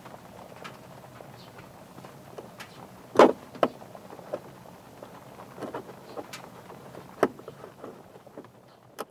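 Light clicks and knocks of clothes hangers and clips being handled as a string clothesline is adjusted, the loudest knock a little past three seconds in, over a low steady hum.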